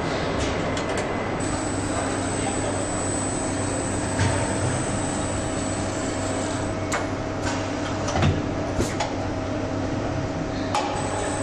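Assembly-line machinery running with a steady hum and hiss and a faint high whine, broken by several sharp clicks and clunks, the loudest about eight seconds in.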